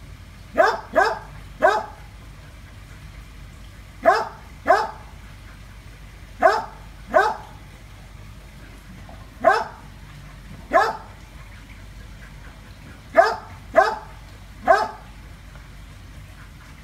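A dog barking at a monitor lizard: about a dozen short barks, singly or in twos and threes, with pauses of a second or two between.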